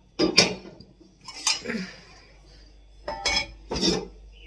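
Steel kitchen utensils and dishes clattering: four sharp clanks and clinks, roughly a second apart.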